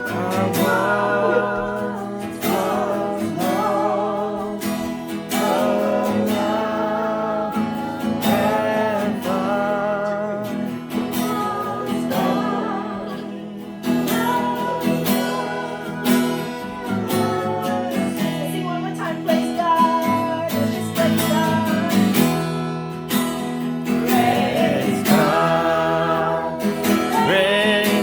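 Worship singing with a strummed acoustic guitar: a sustained sung melody with vibrato over steady chords.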